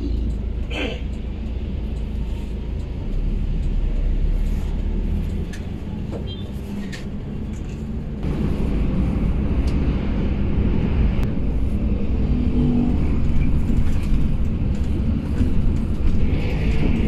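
Intercity bus running on the road: a steady engine and road rumble that grows louder from about eight seconds in, with a few light knocks.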